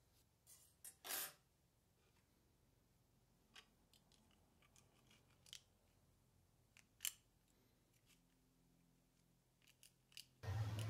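Near silence broken by a few faint clicks and taps of a 3D-printed plastic enclosure being handled as a circuit board is fitted into it. The loudest comes about a second in, and a louder rustle starts at the very end.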